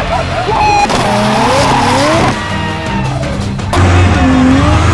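Background music with car tyres squealing, and a race car's engine rumbling and revving toward the end.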